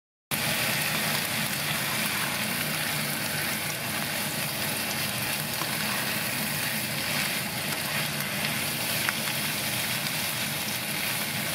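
Corned beef and sliced onions sizzling steadily as they fry in a pan, stirred with a spatula. There is a single light click about nine seconds in.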